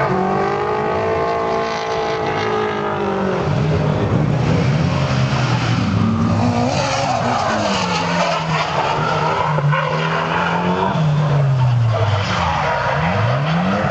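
Drift cars' engines revving up and dropping back again and again, with tyre squeal from cars sliding through the corners.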